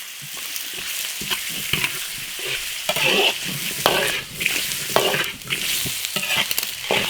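Pieces of soft-shelled turtle sizzling in hot oil in a wok while being stir-fried, with a spatula scraping and tossing them about every second.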